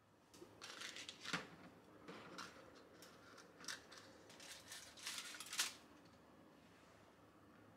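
Soft rustling and handling as a large green leaf is laid on a metal dish and grilled salmon pieces are set on it with chopsticks, with a sharp tap about a second in and another near the end of the handling.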